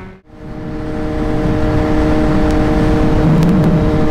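Kawasaki Z H2's supercharged inline-four engine running at steady cruising speed in sixth gear, an even hum with rushing wind and road noise. The sound drops out and swells back in about a quarter second in.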